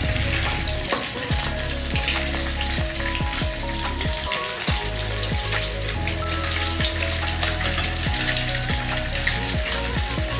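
Pieces of catla fish sizzling and crackling as they fry in hot oil in a steel kadai, with a metal spatula scraping and turning them now and then.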